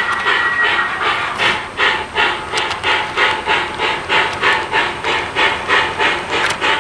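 Model steam locomotive's sound decoder chuffing at about three even beats a second, each chuff a burst of hiss, as the train runs. A steady high tone from the same sound system fades out about a second in.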